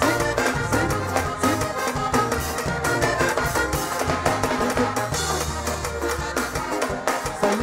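A live band playing an instrumental passage, with drum kit, electric bass, electric guitar and keyboard over a steady dance beat.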